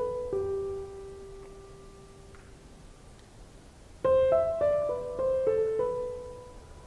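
Background piano music: a short run of notes ending on a held note that dies away, then a similar phrase again about four seconds in.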